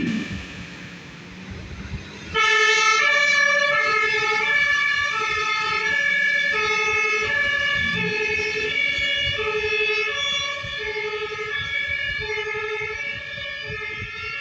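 Fire engine's German two-tone siren (Martinshorn) on an emergency run, alternating steadily between a low and a high tone over engine and road noise. It drops away for the first two seconds, then comes back loud about two seconds in.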